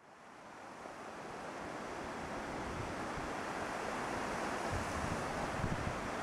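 Steady rush of ocean surf, fading in over the first second or so and then holding even.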